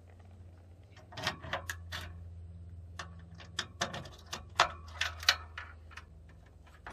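Sharp irregular clicks and clacks of a louvered metal generator-compartment access door being unlatched, rattled and swung open, in two clusters. A steady low hum runs underneath.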